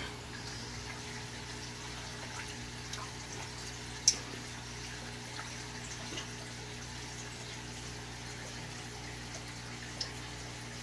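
Aquarium filter running with a steady hum and trickling water, and a few sharp smacks at the surface as young peacock bass strike floating pellets. The loudest smack comes about four seconds in and another near the end.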